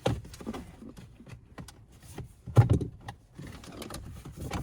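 Plastic interior trim panel being wrenched against tight snap-in clips: a run of clicks and knocks, with a loud pop about two and a half seconds in.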